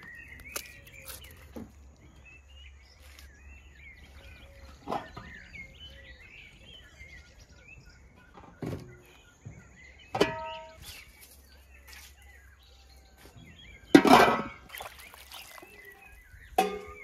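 Small birds chirping throughout, with scattered knocks and clinks of metal bowls and utensils being handled. Two clinks ring briefly, and the loudest is a heavier thump about fourteen seconds in.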